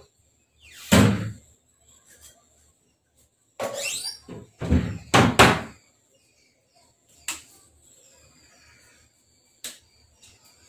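A loud thump about a second in, then a quick run of knocks and bangs that starts with a short squeak, and two sharp clicks later on: household knocks like a door or cupboard being shut and things being put down.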